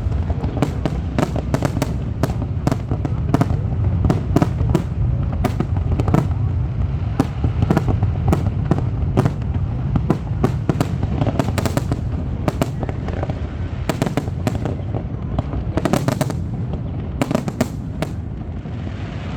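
Fireworks going off: a rapid, irregular run of sharp cracks and pops, several a second, over a continuous low rumble.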